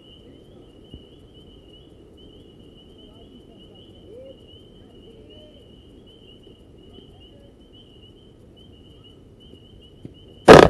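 Night insects chirping steadily in a fast pulsing trill. About ten seconds in comes a single sharp, very loud crack as the pitch reaches home plate.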